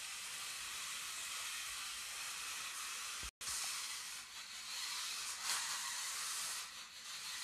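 Small battery-powered toy RC car's electric motor and gears whirring as it drives about, a steady high hiss-like whir that cuts out for an instant about a third of the way through.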